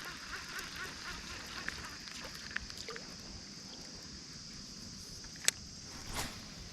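Quiet pondside ambience: a steady high hiss, with faint goose honks fading in the first second or so. A single sharp click comes about five and a half seconds in, followed by a brief rush of sound.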